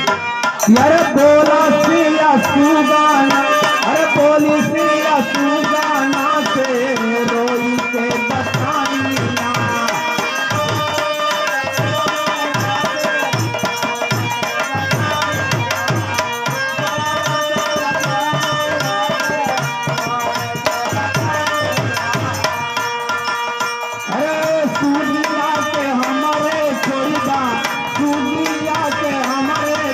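Live Bhojpuri devotional song: a hand drum keeps a steady rhythm under a held melody, and a male singer's voice comes through the microphone near the start and again near the end.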